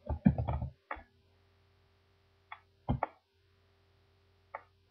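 Computer keyboard keys tapped in a quick run as the year 2012 is typed, then a few single clicks of keys or a mouse button, over a faint steady hum.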